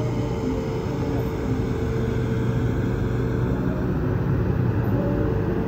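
A steady mechanical drone with a constant pitched hum and a low rumble underneath, holding an even level throughout.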